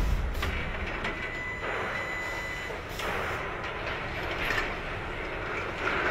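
Steady machinery noise, a low rumble and hiss with a few soft swells.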